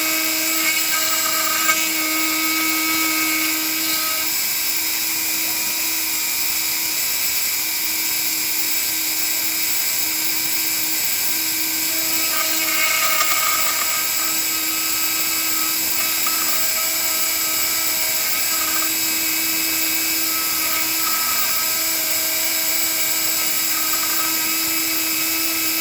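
A Dremel rotary tool spinning at 20,000 RPM with a two-flute bit in a homemade CNC mini mill. It gives a steady high-pitched whine over a hiss, and some of its upper tones come and go as the bit works through the cut.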